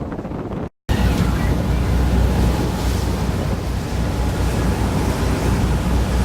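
Wind buffeting the microphone and water rushing past a moving tour boat, over a low rumble. The sound drops out completely for a moment just before a second in, then comes back louder.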